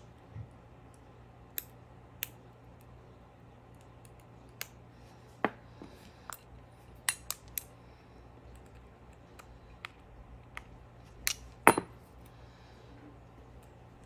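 Small metal clicks and clinks from a precision screwdriver and the Galaxy Note 8's tiny screws being handled and set down while the phone is unscrewed, coming irregularly, about fifteen in all. The loudest clink comes about two seconds before the end, over a faint steady low hum.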